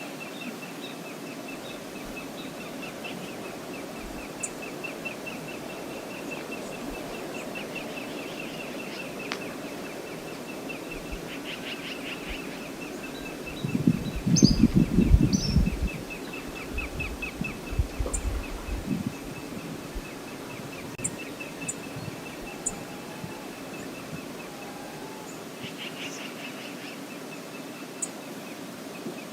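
Steady rush of the Brooks Falls river, with a bird's rapid repeated high chirps at one pitch running through much of it. A short, louder low rumble comes about halfway through.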